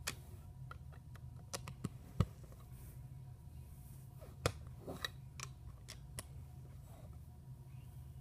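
Plastic Lego bricks clicking and tapping as they are handled and pressed onto a Lego baseplate: about eight scattered clicks, the sharpest about two seconds in, over a steady low hum.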